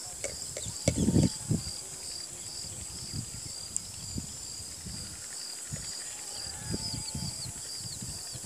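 Outdoor rural ambience: a steady high drone with a short high chirp repeating about twice a second, typical of insects. A few louder low thumps and rustles come about a second in.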